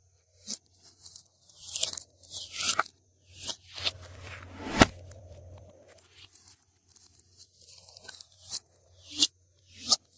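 Glossy slime being worked by hand with mixed-in bits: a run of short, crackly crunches and squelchy pops, with one sharp loud click about halfway through.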